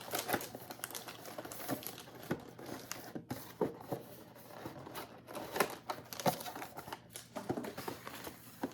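Plastic wrapper of an individually packaged small cake being torn open and crinkled, in irregular crackles.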